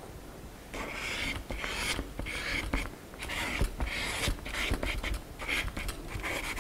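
A crayon scraping back and forth on paper as the ground is coloured in. The short, scratchy strokes begin about a second in and repeat about twice a second.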